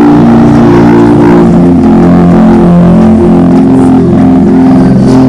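Sustained musical chords: a slow drone of held notes that shift in pitch a few times, with no speech over them.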